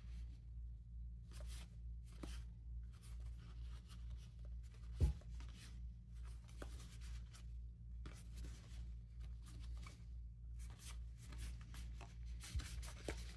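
1992 Topps football cards of thin cardboard being slid off the stack and shuffled through the hands one at a time, a series of soft, irregular scrapes of card against card over a faint low hum. A dull thump comes about five seconds in, and a lighter one near the end.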